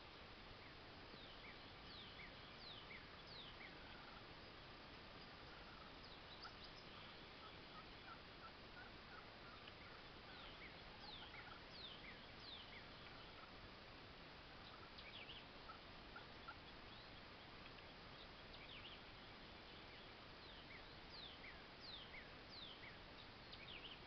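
Wild turkey gobbling faintly, with many short, high chirps of small birds scattered throughout over a low hiss.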